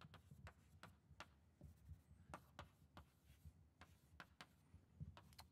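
Chalk writing on a blackboard: an irregular string of faint taps and short scratches as letters are written.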